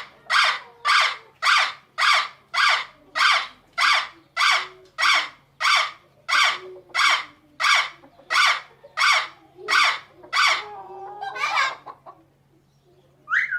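Parrot squawking in a steady series, about two calls a second. Near the end the calls turn irregular, break off, and a single rising call follows.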